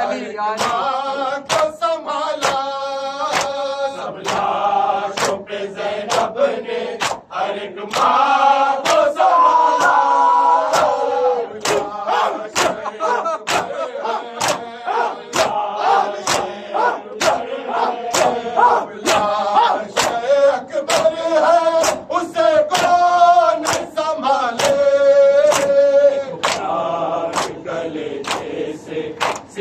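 A crowd of men chanting an Urdu noha in unison while doing matam, beating their chests with open hands. The hand slaps on the chest keep a steady beat under the massed singing.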